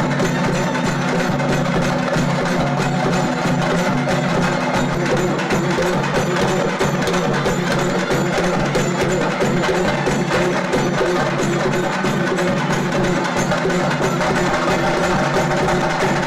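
Ritual drumming: drums beaten fast with sticks in a dense, unbroken rhythm of sharp strikes, over a low steady tone.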